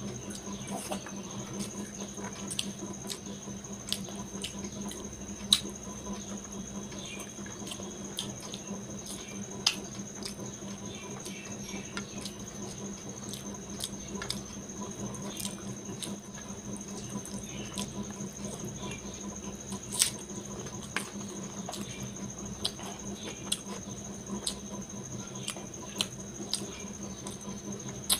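Close-miked eating by hand: wet smacking and clicking of the mouth while chewing rice and curry, with squelches of fingers mixing rice on a steel plate, irregular and several times a second. A steady faint high whine and low hum run underneath.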